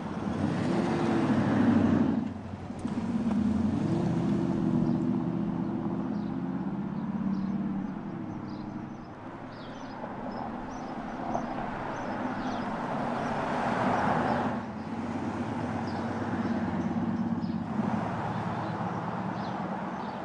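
Audi SQ7's V8 TDI diesel engine as the SUV drives by at low speed, its note swelling and fading over several passes and breaking off abruptly a few times. Birds chirp in the background.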